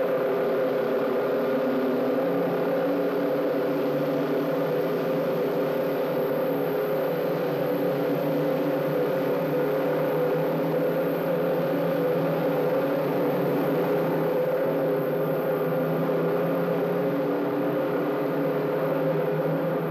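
Many motorcycle engines running together in a steady drone, with almost no deep bass, as on an old film soundtrack.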